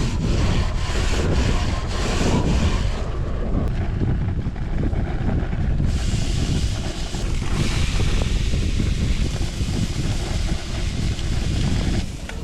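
Strong blizzard wind gusting against the microphone, a loud, uneven rumbling rush.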